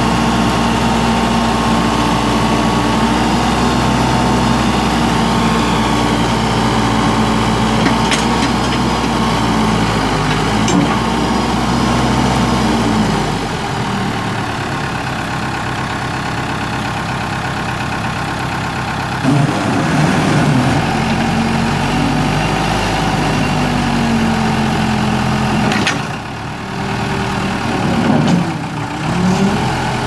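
Case 580L backhoe's Case 4-390 four-cylinder diesel engine running, its speed shifting several times. It drops lower a little before halfway, rises again past the middle, then dips briefly near the end before picking back up.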